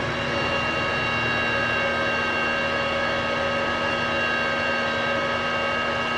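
Inverter welder's cooling fan running steadily: an even whirring hum with several held tones, the welder powered up and working after repair.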